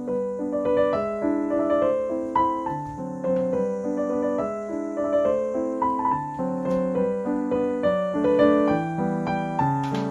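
Background piano music: a melody of single notes over lower held chords.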